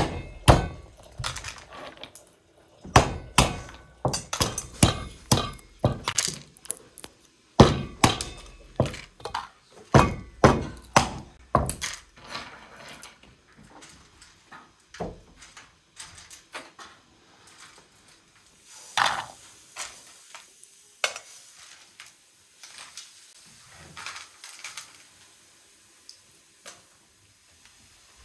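Hammer cracking walnuts in their shells on a wooden board: a rapid, irregular run of sharp knocks and shell cracks that stops after about twelve seconds, followed by scattered light clicks of broken shells being handled.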